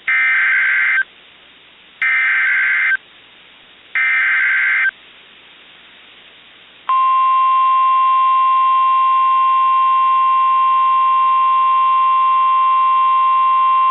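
Emergency Alert System SAME header from NOAA Weather Radio: three one-second bursts of buzzing digital data tones, about a second apart, encoding a Fire Warning for Los Angeles County. About seven seconds in, the steady single-pitch 1050 Hz weather radio warning alarm tone begins and holds.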